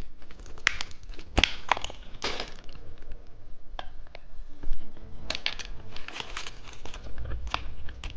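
Plastic candy wrappers crinkling and crackling in irregular sharp clusters as they are handled.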